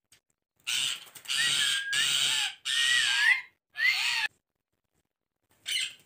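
Indian ringneck parrots screeching: four loud, harsh squawks with gliding whistle-like tones running through them, then a shorter burst near the end.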